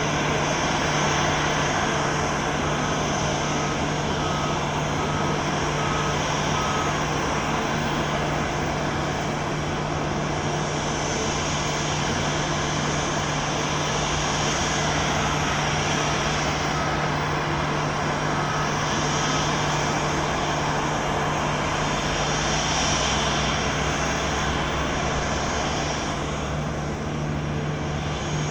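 Boeing 737-800's CFM56-7B jet engines running on the ground, a steady engine noise with a constant low hum.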